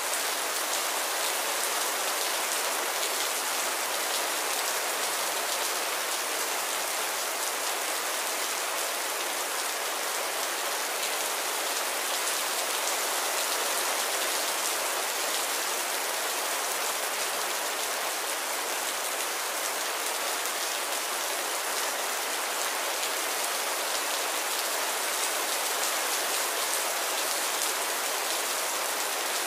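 Heavy rain falling steadily, a dense, even hiss of countless drops striking the ground and other surfaces, with no let-up.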